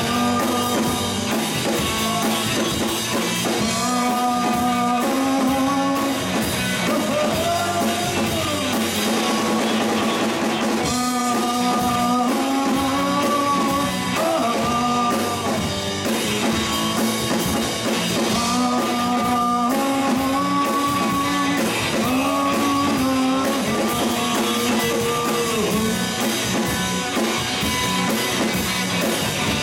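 A rock band playing live: drum kit and electric guitars under a melodic lead line that holds notes and slides between them.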